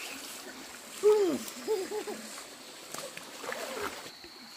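A young child's voice gives a few short, falling cries over the rush and splash of a shallow stream.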